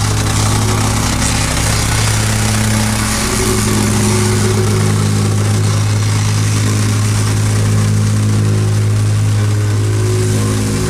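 Petrol plate compactor (whacker plate) running steadily at full throttle, vibrating over loose MOT Type 1 gravel to compact the sub-base, with a strong low hum under a rattling, noisy layer.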